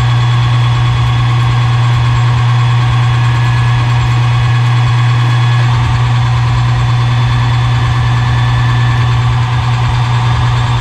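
Metalworking lathe running through a cut, with a loud, steady low hum.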